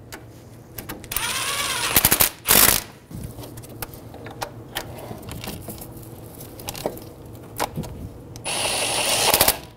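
Cordless ratchet running the 17 mm caliper bracket bolts down snug. There is a whirring run about a second in that ends in a sharp clack, and a second run near the end.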